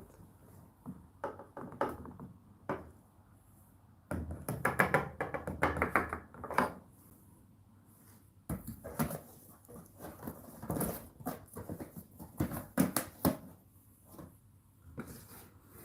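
Hotpoint NSWR843C washing machine drum turning laundry: irregular soft thuds and swishing bursts, with short pauses between turns.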